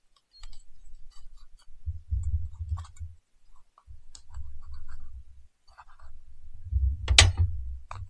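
Kitchen knife cutting mushrooms on a cutting board: scattered light clicks and taps, with one sharper knock about seven seconds in. A low rumble comes and goes underneath.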